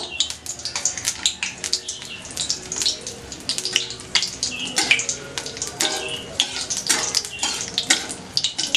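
Bay leaves and dry red chillies sizzling in hot mustard oil in an aluminium kadai, with many irregular crackles, while a steel spatula scrapes and knocks against the pan.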